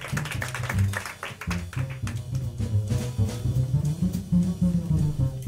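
Live jazz with a plucked double bass carrying a solo line of low notes, and light drum and cymbal strikes behind it.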